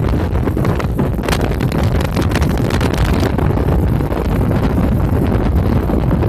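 Strong storm wind buffeting a phone's microphone: a loud, continuous low rumble broken by constant crackling gusts.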